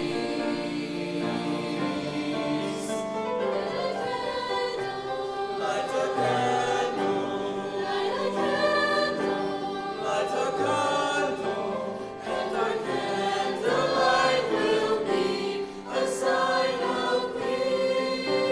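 A high school choir singing a holiday song, many voices sustaining chords together.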